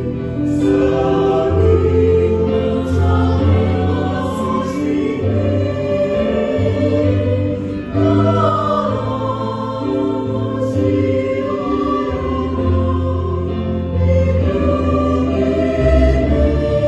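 Choir singing an Indonesian Christian song in parts, with keyboard accompaniment holding low bass notes under the voices.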